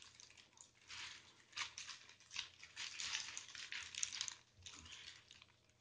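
Clear plastic wrap around a tower speaker crinkling and rustling in irregular bursts as the speaker is gripped and moved into place, dying away near the end.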